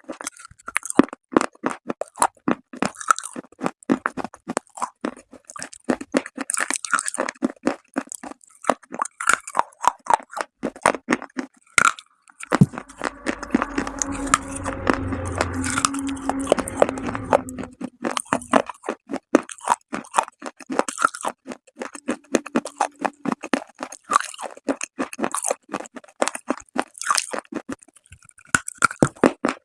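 Dry clay being bitten and chewed close to the microphone: a rapid run of sharp crunches, with a thicker stretch of grinding chewing from about the middle until a few seconds later.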